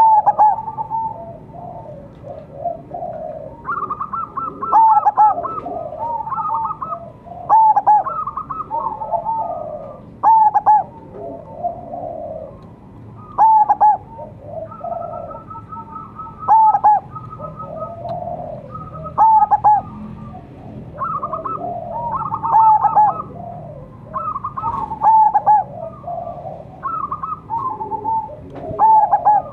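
A Majapahit perkutut (zebra dove) cooing its staccato song over and over, with a loud phrase about every three seconds and quicker, softer notes between them.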